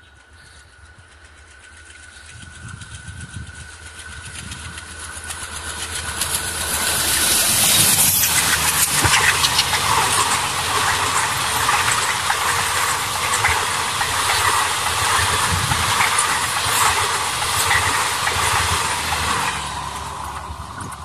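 Alco-design WDM-3 class diesel locomotive approaching at speed, its engine growing louder until it passes about eight seconds in. A long rake of coaches follows, their wheels clattering and rushing over the rails for about ten seconds. The sound drops away near the end as the train recedes.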